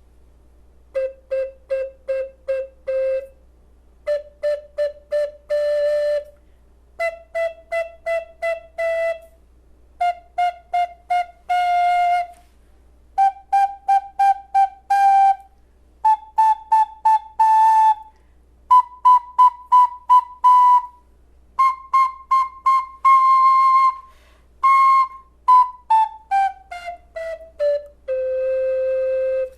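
Flutophone playing the C scale as groups of short repeated notes, each group one step higher, from low C up to high C. It then runs quickly down the scale and ends on a long held low C.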